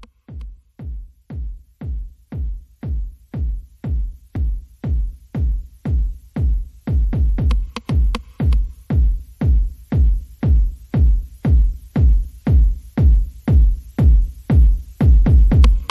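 Electronic dance-style background music with a steady kick drum at about two beats a second. It fades in and grows louder, and higher parts join about halfway through.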